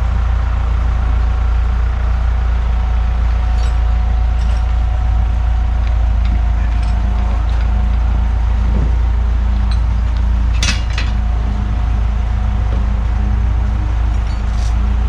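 Sawmill power-unit engine running steadily with a low, even drone. Scattered metallic clinks sound over it, the loudest a sharp double clink about ten and a half seconds in.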